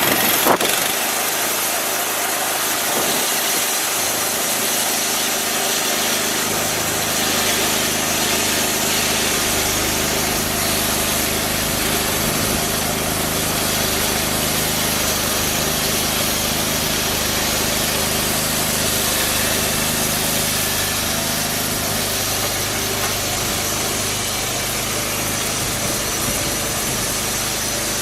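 Engine of a homemade band sawmill running steadily under load while a resharpened cheap blade cuts through a soft cedar log. A brief sharp knock comes about half a second in.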